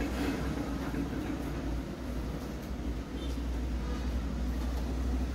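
Trucks passing close by: a steady low engine rumble.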